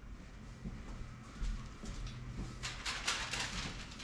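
Quiet kitchen room tone with a faint low hum, and light scattered handling rustles and clicks in the second half.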